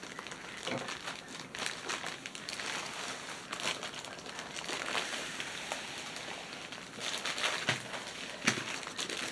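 Thin clear plastic bag crinkling as a rolled canvas is slid out of it and the bag pulled away, in a string of short crackles with a few louder ones near the end.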